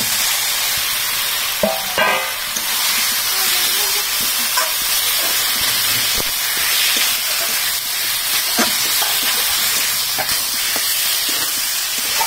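Potatoes tipped into a hot metal kadai of oily spice paste and prawns, clattering in near the start, then frying with a steady sizzle. A long metal spatula stirs and scrapes them, knocking against the pan every few seconds.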